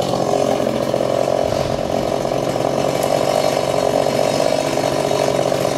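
Chainsaw running steadily at high speed, its engine note holding even without a break.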